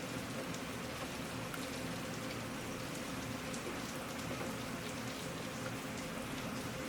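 Heavy rain falling steadily, with single drops pattering on a surface.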